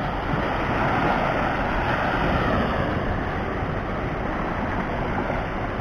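Small waves breaking and washing up onto a sandy beach: a steady rush of surf.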